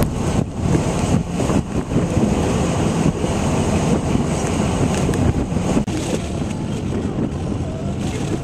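Storm wind buffeting around a car on an open ferry deck, a steady rumble with a few sharper gusts. Lake spray washes over the windshield about halfway through.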